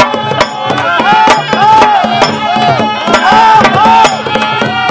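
Live Kota folk music: a shrill reed pipe repeats a short wavering melody over regular drum strokes.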